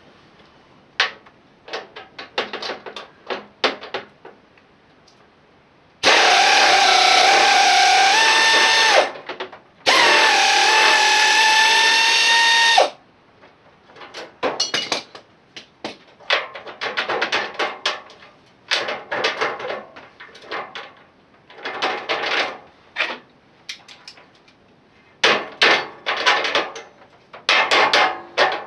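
Power tool, likely an air impact wrench with a socket, running in two loud bursts of about three seconds each with a whine that shifts in pitch, between clusters of quick rattling clicks from working on the lawn tractor's bolts.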